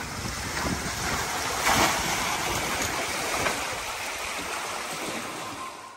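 Water rushing past a trimaran's hulls under sail, with wind noise. It swells louder about two seconds in and cuts off suddenly near the end.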